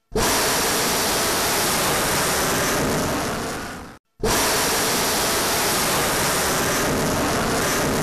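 Ballistic missile's rocket motor firing at launch from a railway car: a loud, steady rushing roar that starts suddenly. It dies away toward four seconds in, breaks off, and comes back at full strength.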